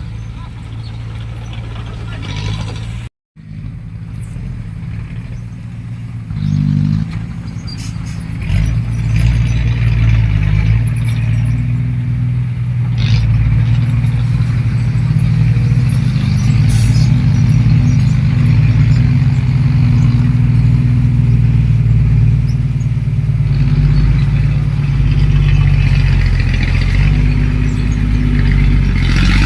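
Diesel engine of heavy earthmoving machinery running steadily. It gets louder about seven to eight seconds in, as if working harder or coming closer, and stays loud. There is a brief complete dropout about three seconds in.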